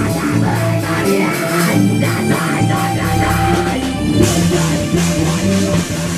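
Post-hardcore/metal band playing live: distorted electric guitars, bass and a drum kit, loud and steady, with cymbals crashing in about four seconds in.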